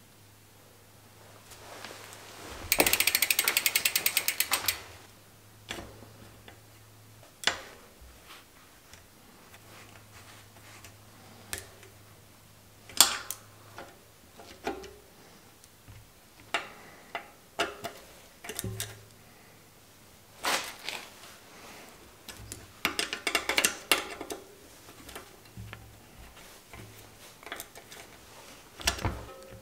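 Bicycle workshop sounds: about two seconds of rapid, even ratchet clicking from the rear hub's freewheel pawls as the wheel turns, then scattered metallic clicks and taps of a hex key and hands adjusting a mechanical disc brake caliper, with another short run of quick clicks near the end.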